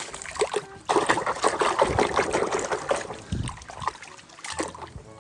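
Water trickling and splashing over a toy truck as it is washed by hand, busiest in the first few seconds and dying down toward the end.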